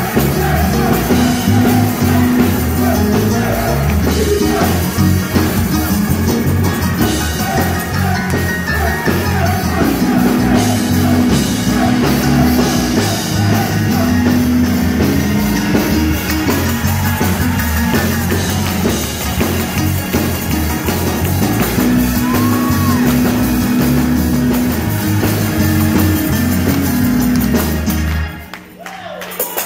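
Gospel choir singing live with a microphone PA, over a heavy, steady bass line and held chords. The music drops out abruptly about two seconds before the end.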